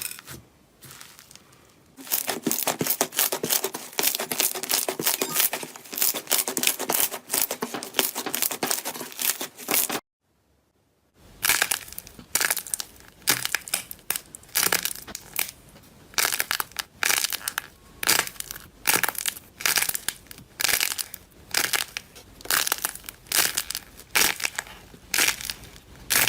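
Slime being squeezed and pressed by hand, giving dense crackling and popping. The sound breaks off for a moment about ten seconds in, then returns as repeated crunches about twice a second.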